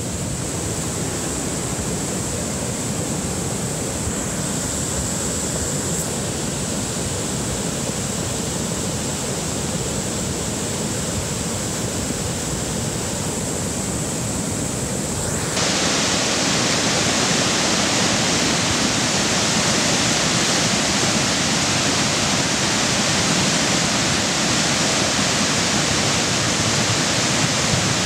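Debris flow in a mountain torrent: a steady rushing of muddy water and debris down the channel. It gets suddenly louder and brighter a little past halfway.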